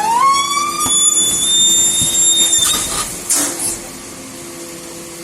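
Garbage truck machinery letting out a high squeal that rises in pitch, then holds for about two and a half seconds before stopping. A couple of short hisses follow, over a low steady machine hum.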